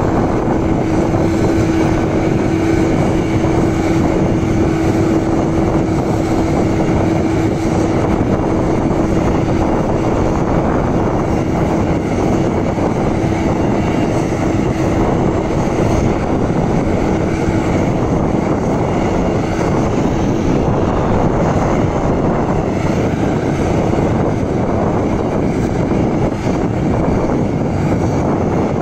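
Krone BiG X 1100 self-propelled forage harvester running under load as it chops maize and blows it into a truck alongside: a loud, steady mechanical drone from its V12 engine and chopping drum, with a steady hum that weakens in the second half.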